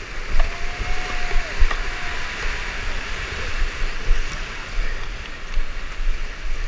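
Whitewater rushing and splashing around a kayak as it is paddled through rapids, with low rumbling buffeting on the helmet-camera microphone.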